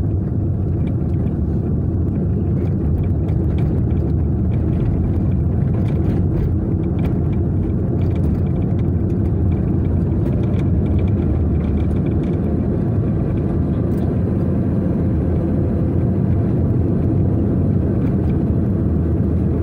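Steady low rumble of a car's engine and tyres while driving along a paved road.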